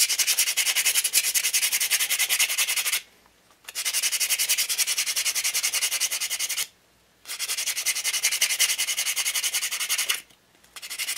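Sandpaper rubbed briskly back and forth along a cast white metal model machine-gun barrel shroud, sanding away a casting seam. It is a rapid, even, high-pitched rasping in four runs, with three short pauses between them.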